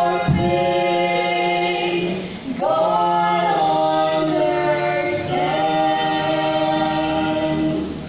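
A trio of two women and a man singing together in harmony through microphones, holding long notes, with a short break between phrases about two and a half seconds in.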